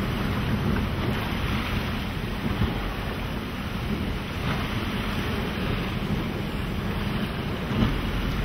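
Wind buffeting the microphone over choppy sea, a steady rumbling noise with no let-up.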